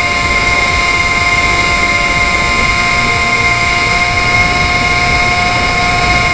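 Motor and propeller of a Depron foam model plane in flight, heard from its onboard camera: a steady, high whine that holds one pitch, over low wind rumble on the camera.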